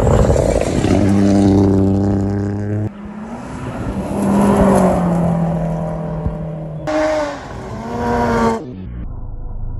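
Rally cars at full throttle on a gravel forest road, in several short clips cut one after another: engines revving high, the note rising and falling with gear changes as each car passes. Near the end the engine sound cuts off, leaving a low rumble.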